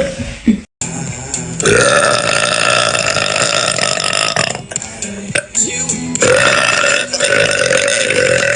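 A woman burping: two long, drawn-out deep burps held at a steady pitch, each lasting about three seconds. The first starts about a second and a half in, and the second starts about six seconds in and is still going at the end.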